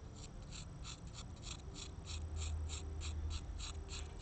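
Pointed clay tool scratching across a leather-hard clay slab in quick short strokes, about four or five a second.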